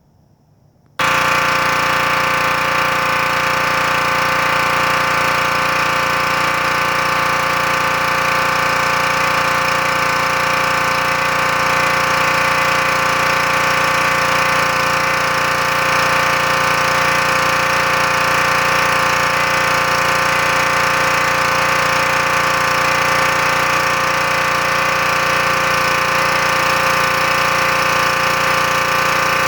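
Troy-Bilt gas pressure washer running steadily while driving its 15-inch surface cleaner over concrete; the loud, even sound starts abruptly about a second in.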